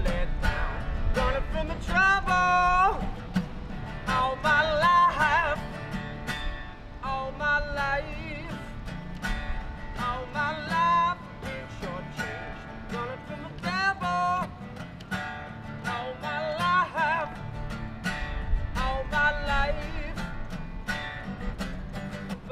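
A man singing a song to his own strummed acoustic guitar, his voice in phrases of a second or two with held, wavering notes over a steady strum.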